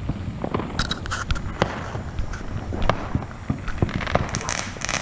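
Fireworks going off: a scatter of irregular pops and bangs, with crackling bursts about a second in and again near the end.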